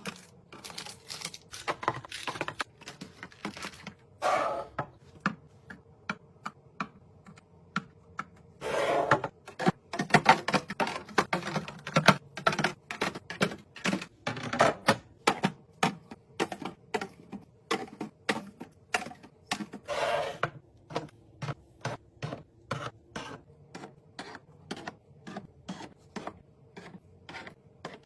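Household items and containers being handled and set down during restocking: a steady run of light clicks and taps, with a few longer noisy stretches.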